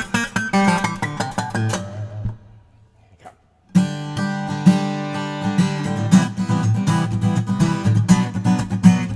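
Koa-topped Takamine PTU200 SP-K dreadnought acoustic guitar being played. Picked notes ring and die away about two seconds in. After a brief silence, strummed chords start again and carry on steadily.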